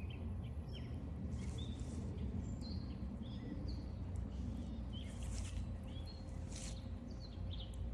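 Small birds chirping, short high calls scattered through, with a few brief noisy rustles among them, over a steady low rumble.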